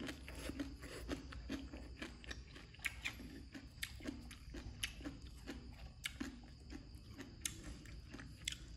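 A person chewing mouthfuls of crunchy shredded green papaya salad, a close, irregular run of wet crunches and mouth smacks.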